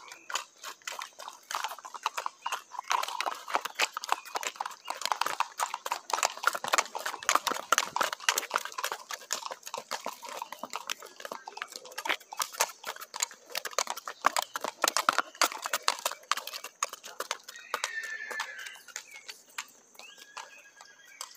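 Marchador horses' hooves striking asphalt in a quick, even clip-clop as they are ridden past at a gait, the strikes thinning out near the end.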